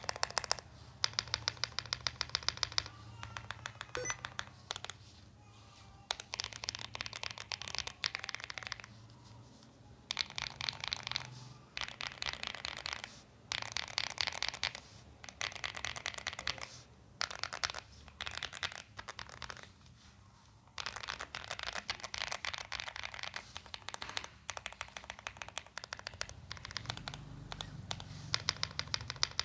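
Mechanical keyboard with Ajazz Banana tactile switches on 50g springs, typed on in fast runs of a few seconds with short pauses between, each keystroke a sharp poppy click.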